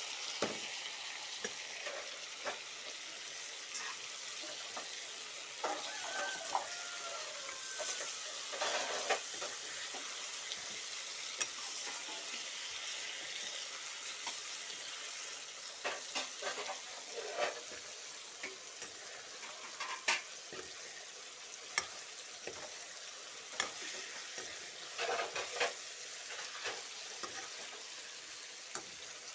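Okra and green chillies frying in oil in a metal kadai with a steady sizzle, while a metal ladle stirs through them, scraping and clicking against the pan now and then.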